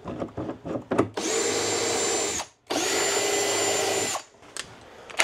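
Cordless drill run in two bursts of about a second and a half each, speeding up and winding down each time, after a few clicks of tool handling in the first second.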